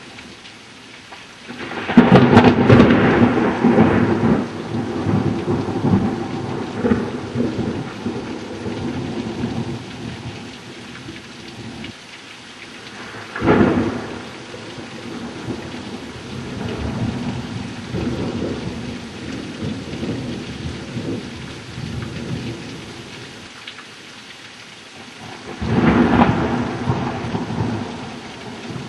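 Thunder over steady rain in an electrical storm. A loud crack about two seconds in rolls on as rumbling for several seconds, a shorter sharp clap comes midway, and another peal follows near the end.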